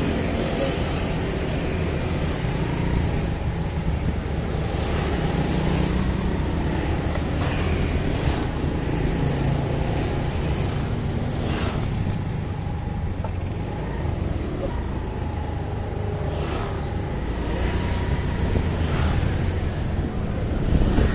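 Motorcycle engine running as the bike rides along a city street, in steady traffic with motor scooters passing close by several times.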